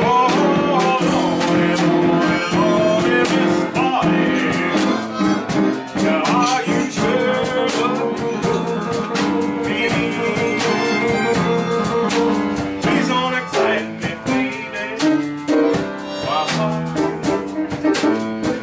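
A live blues band playing: a drum kit with cymbals keeps time under a melody of sustained and bending notes.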